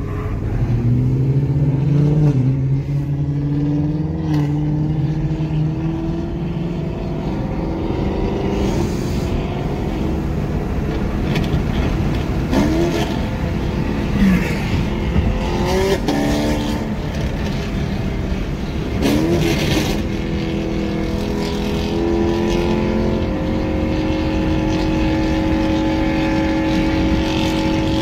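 Car engines at full throttle on a highway, heard from inside a following car: the engine note climbs, jumps with several quick gear changes in the middle, then holds a steady high drone near the end, over constant road noise.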